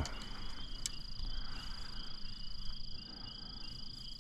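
Evening insect chorus: a steady high trill with a second, pulsing trill a little lower.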